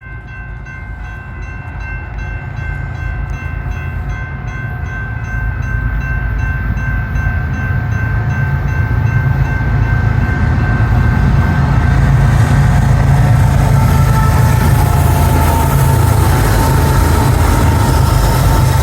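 BNSF intermodal freight train approaching, its diesel locomotives' low rumble growing steadily louder until it is loud by about twelve seconds in. A steady multi-tone air horn sounds through the first several seconds, then fades under the rumble.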